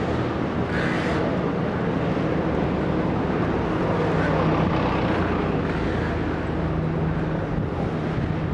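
Street traffic: vehicle engines running close by, a steady low hum over a wash of traffic noise, with a brief hiss about a second in.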